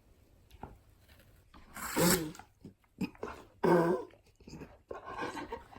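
Husky-malamute mix 'talking', with two short, loud vocalisations about two and four seconds in, then softer ones near the end.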